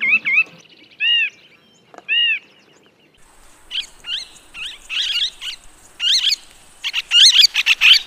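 A nuthatch giving nasal, evenly spaced calls, a quick run of them and then two single notes about a second apart. Parakeets then take over with shrill, chattering screeches that grow denser and louder toward the end.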